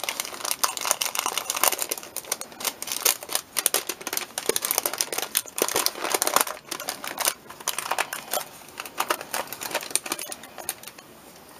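A small red-and-white striped treat bag crinkling and rustling as it is opened and handled by hand: a dense run of sharp crackles that dies down near the end.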